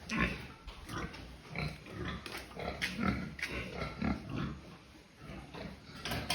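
Pigs grunting, a string of short, irregular calls following closely one after another.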